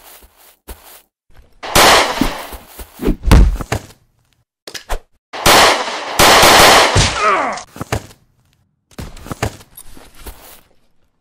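Gunshot sound effects: loud shots with long echoing tails about two and three seconds in, and a longer spell of firing from about five seconds, followed by a few softer knocks near the end.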